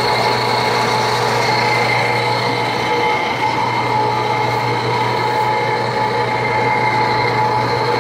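Snowco two-stage grain cleaner running: its electric motor driving the auger and rotating screen drum, a steady mechanical hum with several whining tones over a noisy rattle.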